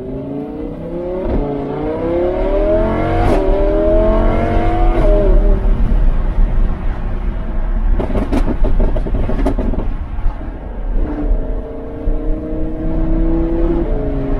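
Lamborghini Huracan LP610-4's 5.2-litre V10 through a Fi Exhaust valvetronic cat-back, accelerating through upshifts. The pitch climbs and drops back at each shift, about a second in and again about three seconds in with a sharp crack. Off the throttle the exhaust gives a rapid string of crackles and pops about eight to ten seconds in, then the engine pulls steadily at lower revs, with another shift near the end.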